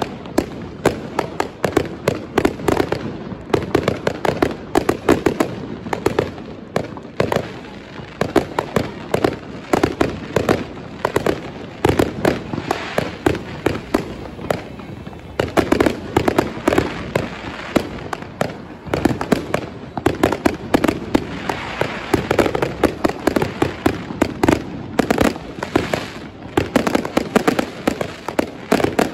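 Dense, unbroken barrage of fireworks: many bangs and crackles from shells bursting overhead and firecrackers, overlapping without a pause.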